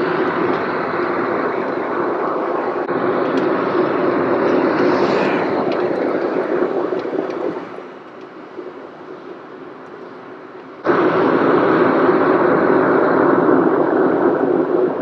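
Steady road and engine noise of a moving car heard from inside the cabin. It drops to a quieter level about halfway through and jumps back to full loudness abruptly a few seconds later.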